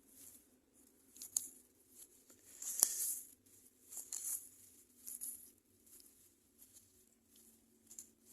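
Faint rustling and scraping in short, irregular bursts, with two sharp clicks, one just over a second in and a louder one near the three-second mark: hands and tools turning over soil and leaf litter while searching for earthworms for bait.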